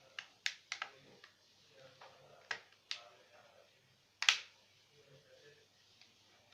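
A run of sharp, irregular clicks and taps of small hard objects being handled, several in the first second, two more near the middle and the loudest about four seconds in.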